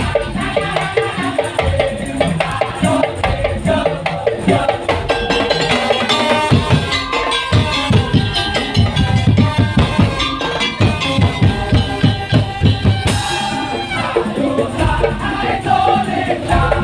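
Madurese tong-tong ensemble playing: fast, dense rhythmic percussion on wooden slit drums and drums, with pitched instruments sounding over the beat.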